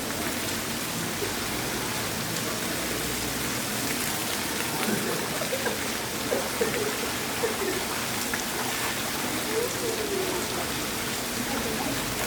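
Heavy rain falling steadily, a constant wash of noise, with faint voices now and then about halfway through and near the end.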